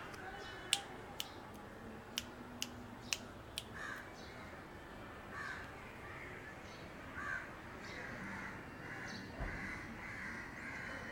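Kitten mewing in short, repeated calls every second or two. A quick series of sharp clicks comes during the first few seconds.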